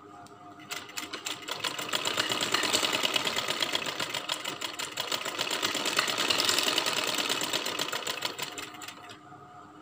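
Sewing machine stitching along the folded edge of a fabric hem, its needle running in fast, even ticks. It starts about a second in, picks up speed, runs steadily, then slows and stops near the end.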